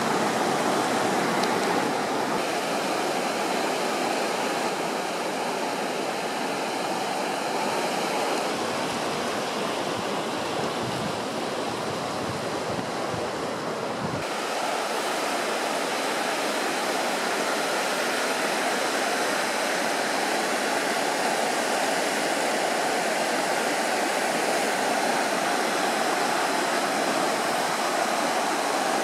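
Floodwater of a swollen river rushing over stones: a steady, even rush of water. About halfway through, the deepest part of the sound drops out and a lighter, hissier rush carries on.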